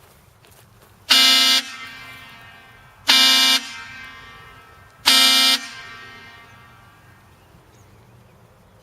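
Pair of Seige Engineering train horns, 17 and 21 inches long, blown in three short blasts about two seconds apart, each cut off sharply and followed by a fading echo. Heard from about 100 feet, where a meter reads 92 decibels.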